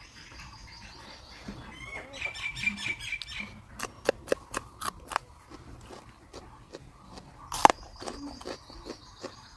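A bird chirping in a quick trill, over a steady high-pitched buzz that fades and comes back near the end. A run of sharp clicks follows in the middle, with one loud click near the end.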